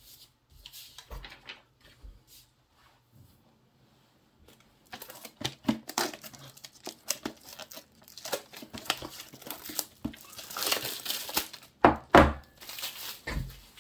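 Crinkly packaging being handled and torn: faint scattered ticks at first, then about five seconds in a dense run of crinkling and crackling with sharp snaps, loudest a couple of seconds before the end.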